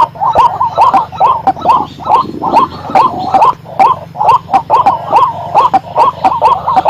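White-breasted waterhen calling: a loud, unbroken run of short croaking notes, about four a second.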